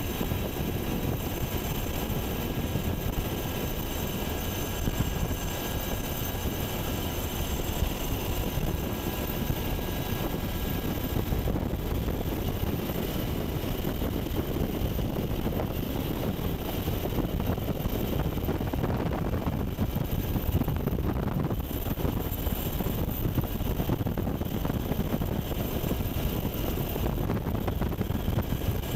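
UH-60 Black Hawk helicopter in steady flight, heard from inside the cabin: a constant din of rotor and twin-turboshaft engine noise with several high, steady whining tones on top.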